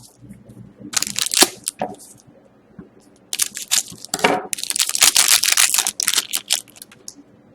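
Hockey trading cards and their foil pack wrapper being handled: crinkling and rustling in bursts, a short one about a second in and a longer, louder stretch from about three to seven seconds in.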